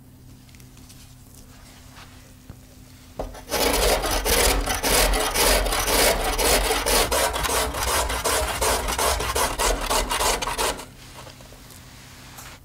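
A carrot grated on a stainless steel box grater: a fast run of rasping strokes that starts about three seconds in and stops a couple of seconds before the end.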